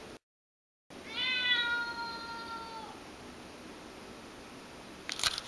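Domestic cat giving one long, drawn-out meow about a second in, its pitch dropping at the end: the pet cat screaming for its owner. A couple of sharp clicks follow near the end.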